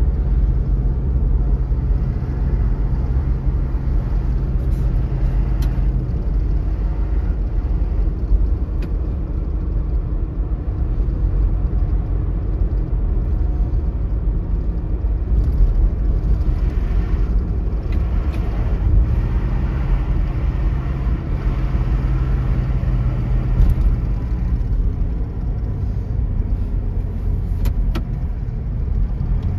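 Car driving along a road: a steady low rumble of engine and tyres. The engine hum drops away about six seconds in and returns around twenty seconds.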